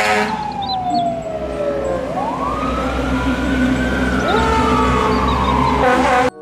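Fire engine sirens wailing as the trucks drive past, the pitch sliding slowly down, sweeping back up and falling off again, with a second siren rising over it about two thirds of the way through. A low rumble of truck engines runs beneath, and it all cuts off suddenly near the end.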